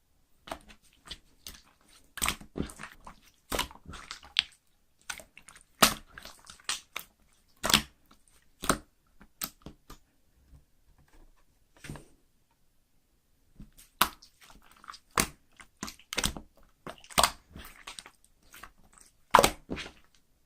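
Clear slime being worked by hand, giving irregular sharp wet clicks and crackles in clusters, with a few seconds' pause about halfway through.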